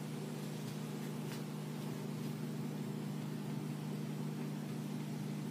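A steady low mechanical hum, unchanging throughout, over a faint even hiss of pancake batter cooking in an oiled stainless steel pan.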